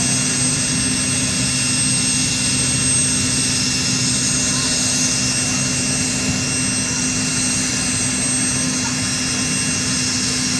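Sikorsky UH-60 Black Hawk helicopter running on the ground before takeoff, its twin turboshaft engines and turning rotors making a loud, steady noise with a thin high-pitched whine.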